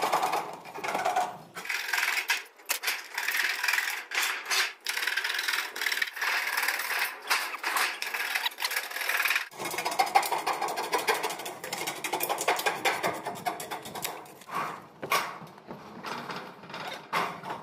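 Aviation snips cutting thin sheet-metal flashing: a rapid, uneven run of snipping and scraping strokes with brief pauses.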